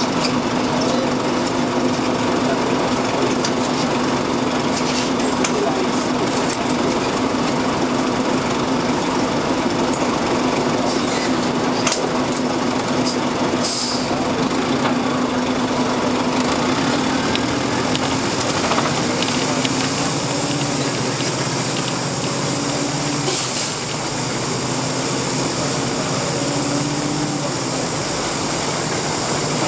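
Nova Bus RTS city bus heard from inside the cabin, its Detroit Diesel Series 50 engine and ZF Ecomat automatic transmission running with a steady whine. The engine note changes about eighteen seconds in.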